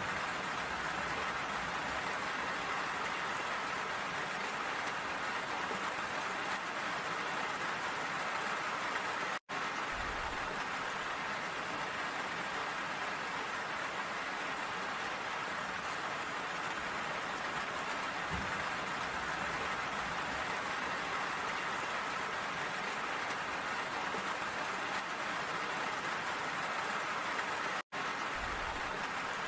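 Steady rain, an even hiss of many drops falling and splashing on surfaces. The sound cuts out for an instant twice.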